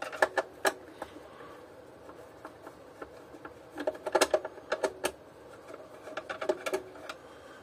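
A screwdriver working screws out of a vacuum cleaner's plastic housing, with the plastic being handled: irregular small clicks and scrapes that come in short clusters.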